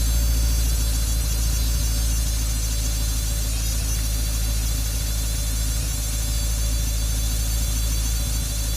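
Pontiac GTO engine idling steadily in neutral, with a constant low rumble and a faint buzz.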